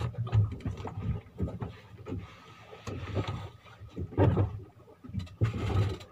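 Irregular knocks and low rumbles aboard a small fishing boat: water slapping against the hull and bumps of people moving on the deck and sitting down on a cooler box.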